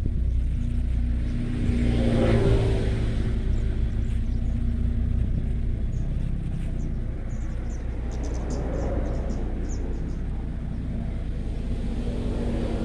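Low engine rumble of passing motor vehicles, swelling and fading three times: about two seconds in, again around nine seconds, and near the end.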